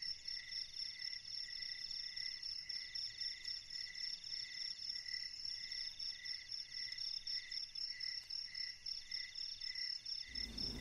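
Crickets chirping: a steady high trill, a lower chirp about twice a second, and a mid-pitched trill that runs in long stretches with short breaks.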